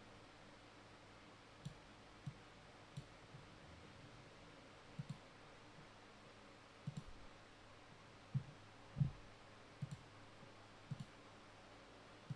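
About a dozen faint, irregularly spaced clicks and light knocks over a low steady hiss, the loudest a little after the middle.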